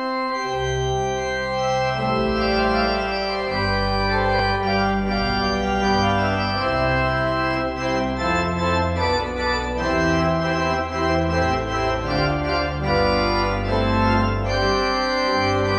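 Organ music: full sustained chords over deep pedal bass notes, the chords changing about once a second.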